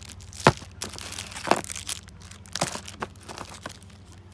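Clear plastic packaging crinkling as bagged parts are handled and set down, in a series of sharp crackles, the loudest about half a second in.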